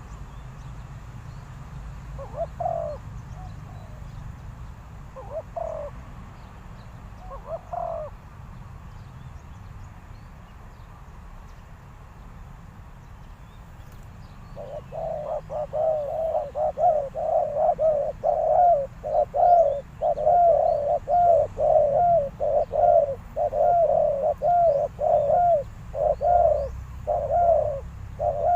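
Spotted dove cooing: a few single coos early, then, about halfway through, a fast run of repeated coos, about two a second.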